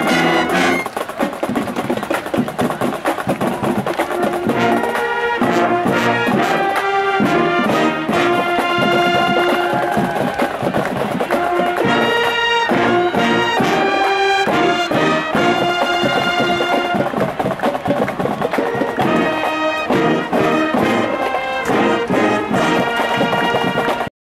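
A high school marching band playing, brass with percussion, in held phrases with short breaks between them.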